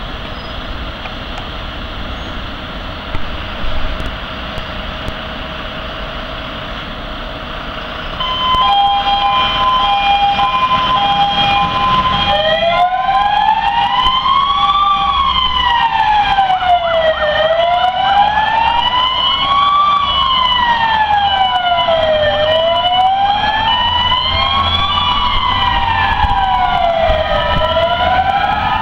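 Fire engines leaving on an emergency call. At first only the trucks' engines rumble. About eight seconds in, a two-tone siren starts, alternating between two pitches. A few seconds later a second siren joins with a slow wail that rises and falls about every five seconds.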